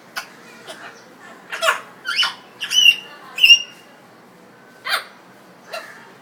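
African grey parrot making a string of short clicks, squeaks and whistled chirps, about eight in all, with the loudest whistled notes in the middle.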